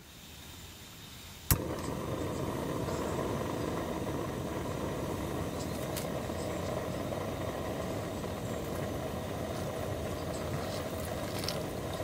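A single sharp click about a second and a half in, then at once a steady, low rushing noise that carries on unbroken.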